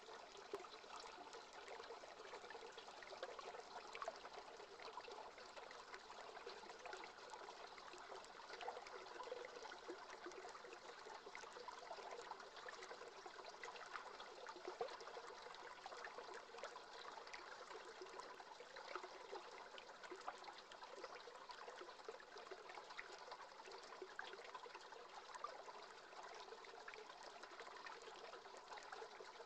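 Faint, steady babble of running river water.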